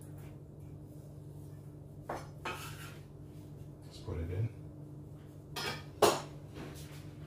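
Kitchen knife scraping and clinking against a ceramic dish as chopped cherries are pushed off a wooden chopping board into it. Several separate scrapes and clinks, the sharpest about six seconds in.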